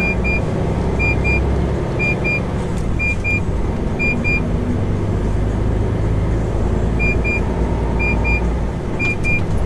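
Cab of a MAN TGX semi-truck under way: the diesel engine runs with a steady low hum. A short, high double beep repeats about once a second, with a pause of a couple of seconds midway.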